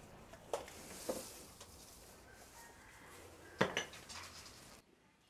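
A few sharp clanks and knocks, about half a second, one second and three and a half seconds in, the last a quick cluster and the loudest, as things are handled at a cattle stall's wooden feed trough.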